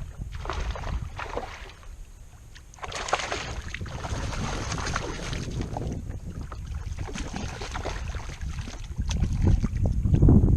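Wind buffeting the microphone, with water sloshing and splashing around a kayak in irregular washes. The wind rumble grows louder near the end.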